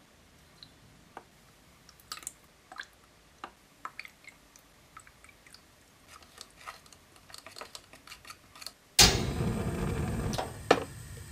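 Light, irregular clicks and taps of a clear plastic cup being handled as water is poured onto toy-kit powder and stirred in with a finger. About nine seconds in, a sudden loud rushing hiss starts, easing after a second and a half and carrying on more quietly, with one sharp knock as it eases.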